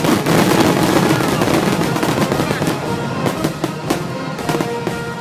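Aerial fireworks bursting and crackling in a dense, rapid barrage of bangs.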